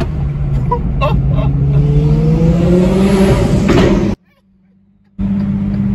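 Twin-turbo Audi R8 V10 accelerating ahead, heard from inside a following car: a steady engine drone, then engine pitch rising with a growing rush of turbo hiss. Near the middle the sound cuts out abruptly for about a second, then the steady drone returns.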